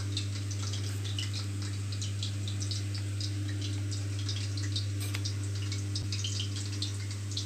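A steady low electrical hum, with faint scattered light clicks and taps as a sheet of wheat-flour dough is rolled out with a rolling pin.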